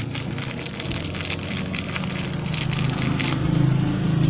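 Small clear plastic parts bag crinkling and crackling as fingers work it open, busiest for the first three seconds or so. A low steady hum swells beneath it in the second half and is loudest near the end.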